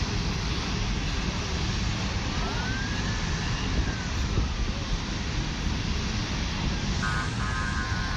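Steady, jet-like roar of natural gas burning from a ruptured gas line. A faint siren rises and falls around the middle, and a brief horn-like tone sounds near the end.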